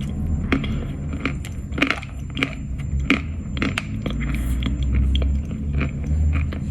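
Dry crunching as a lump of Khrapovsky chalk is bitten and chewed close to the mic: sharp cracks about every half second, fading to softer chews in the later seconds, over a steady low rumble.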